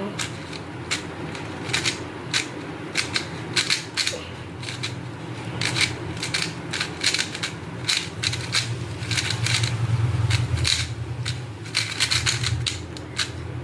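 A Tornado V4 magnetic speed cube being turned fast during a solve: a rapid, irregular run of plastic clicks as the layers snap into place.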